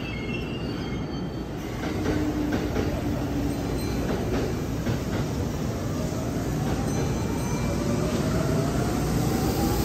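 Kintetsu 3200-series electric train pulling out, its traction motors whining in a rising pitch as it speeds up, over the rumble of its wheels on the rails.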